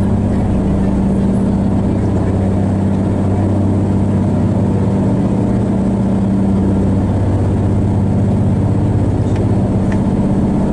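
Whale-watching boat's engine running at a steady, unchanging drone, heard from on board.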